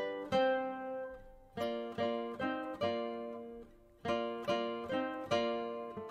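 Background music: a solo plucked-string instrument playing an early-music piece, single picked notes and chords ringing out. There are two short lulls, about a second in and again past the middle, where the notes die away before the next phrase.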